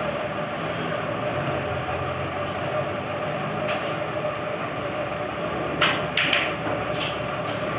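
Snooker shot: a sharp click of the cue striking the cue ball about six seconds in, then a few lighter clicks of the balls knocking as it rolls. A steady background hum runs underneath.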